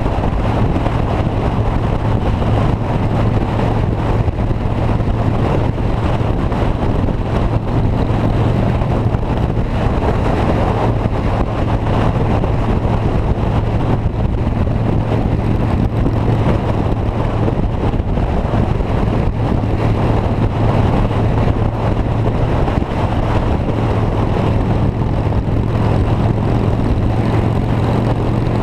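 Steady drone of a moving vehicle: a low, even hum under a constant rushing noise.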